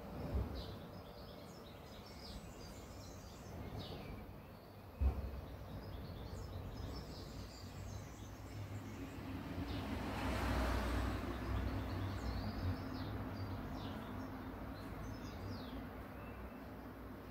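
Outdoor background with small birds chirping in short calls throughout. A single sharp knock about five seconds in, and a vehicle passing, rising and fading about ten seconds in.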